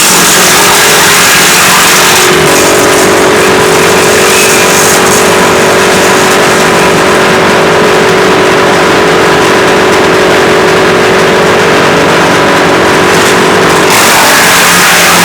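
WC 8 woodchipper running loud and steady. About two seconds in the hissy edge of the noise eases and a steady hum comes to the fore; near the end the harsher noise returns.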